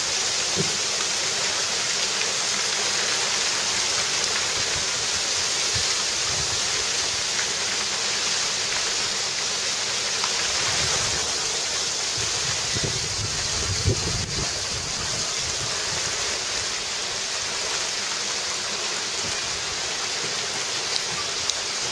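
Steady hiss of a heavy wintry shower falling on the roof and garden, with a few sharper ticks near the end.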